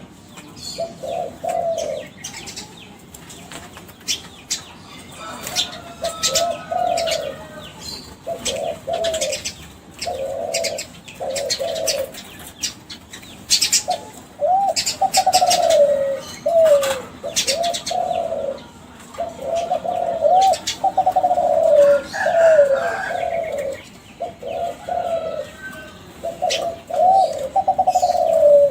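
Kelantan-strain spotted dove (derkuku) cooing in repeated phrases of bending notes, the phrases following one another with short gaps and growing louder from about halfway through. Sharp clicks are scattered among the coos.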